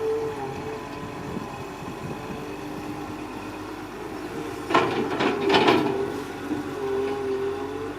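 Excavator engine and hydraulics running steadily, with a pitched whine that wavers slightly. About five seconds in comes a short run of loud knocks and clanks lasting about a second and a half.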